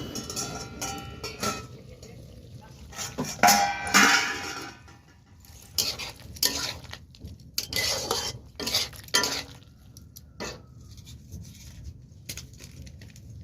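Metal cooking utensils clinking and clattering against a pot and dishes in irregular knocks, the loudest two, about three and a half and four seconds in, ringing briefly.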